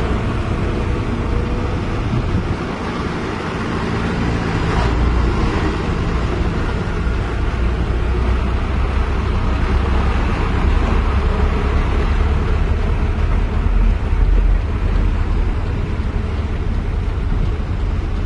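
Heavy diesel engine running steadily, a low drone that goes on throughout.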